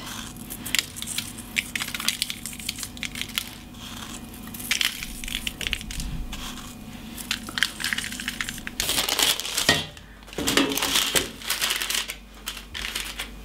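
Coarse sea salt crumbled between fingers and sprinkled onto cabbage leaves on baking parchment: a dense crackling and ticking of crystals. Near the end, louder rustling as the parchment-lined baking tray is moved into the oven.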